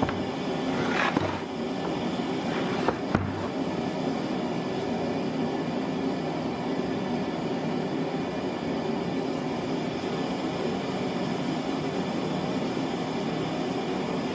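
Power saw running steadily, a continuous machine hum with a couple of brief louder moments about one and three seconds in, cutting off abruptly at the end.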